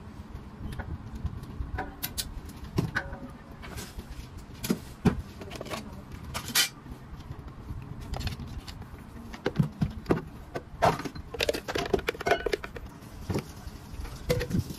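Irregular clicks, taps and knocks of clear plastic drink cups and a measuring jug being picked up and set down on the bar's rubber mats, busiest near the end.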